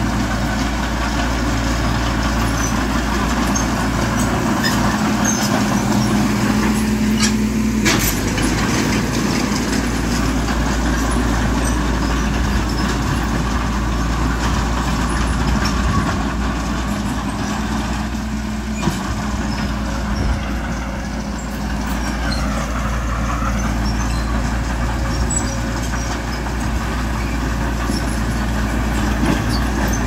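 Heavy diesel construction machinery, bulldozer and dump truck engines, running steadily, with a sharp click about eight seconds in.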